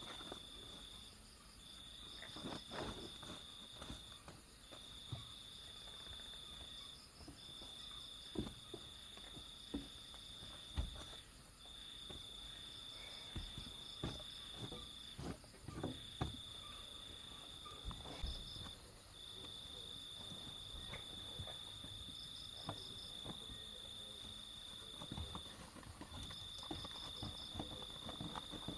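Crickets trilling at a high, even pitch in long unbroken stretches with short pauses. Over it come irregular knocks and rustling from a person moving about on a woven sleeping mat and rolling it up.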